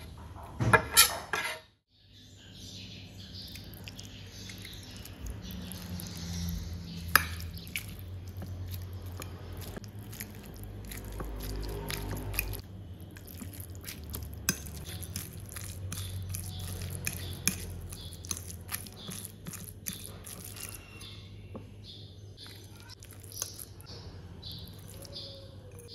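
A fork mashing tofu against a ceramic plate: many small clinks and scrapes of metal on china over a steady low hum. Near the start a brief loud clatter comes as minced shrimp is scraped off a plate into a plastic bowl.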